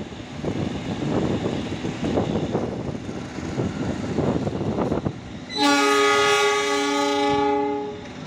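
Passenger train rolling past with rumble and wheel clatter. About five and a half seconds in, a loud train horn sounds for a little over two seconds, a steady chord of tones, then stops.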